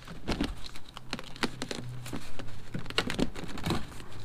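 Irregular plastic clicks and taps as a screwdriver presses down the retaining tab and gloved hands work the factory front door speaker and its plastic bracket loose from the door.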